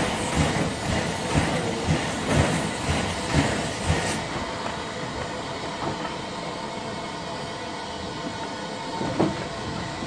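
Shay geared steam locomotive working with exhaust chuffs about twice a second over a loud hiss of steam. A little after four seconds the hiss cuts off suddenly and the chuffing dies away, leaving the locomotive rolling with a low rumble and a single knock near the end.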